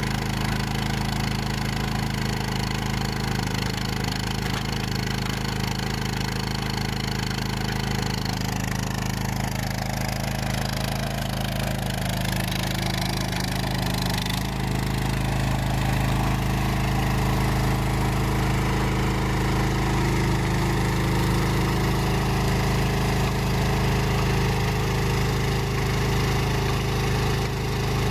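Chinese mini skid steer's engine running steadily while it drives a Ditch Witch trencher attachment through the hydraulics. The engine note shifts and gets slightly louder about halfway through.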